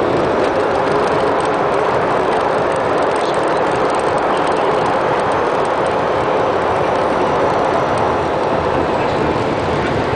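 Steady loud rush of jet engine and runway noise heard inside the cockpit of a Cessna Citation business jet during the landing roll.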